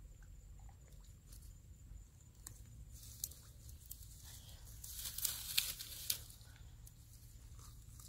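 Hands scraping and digging in a wet mud bank while dry grass stems rustle and crackle, as small scattered scratches. About five seconds in comes a denser, louder second of crackly rustling.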